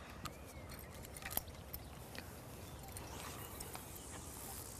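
Faint outdoor field sound: a low steady hiss with scattered light clicks, a brief faint chirp shortly after the start, and a slightly stronger high hiss near the end.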